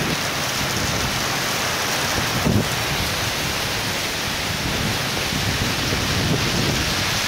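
Torrential wind-driven rain pouring onto pavement in a thunderstorm: a loud, steady, dense hiss.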